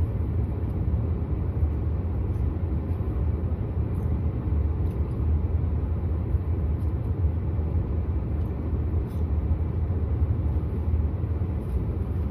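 Steady low rumble of a car's running engine, heard from inside the cabin, with a few faint clicks over it.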